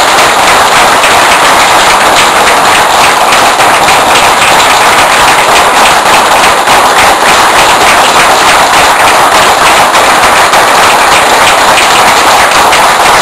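A room full of people applauding loudly and steadily, a long round of applause.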